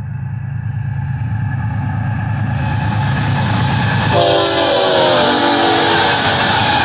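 Union Pacific GE diesel locomotives (C45ACCTE and C44ACCTE units) at the head of a fast intermodal train, their engine rumble and wheel noise growing louder as they approach and pass. A multi-note horn sounds about four seconds in for roughly two seconds, its pitch dropping slightly as the locomotives go by.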